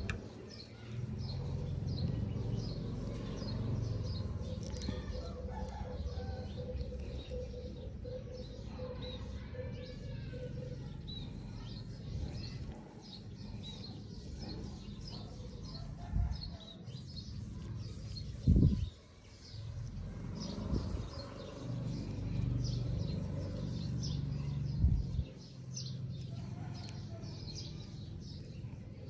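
Small birds chirping over and over in the background, with a low rumble and a few dull thumps in the second half, the loudest about two thirds of the way in.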